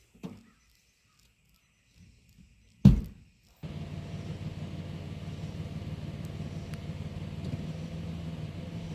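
A single loud thump, then a vehicle engine that starts up abruptly about three and a half seconds in and runs steadily with a low hum.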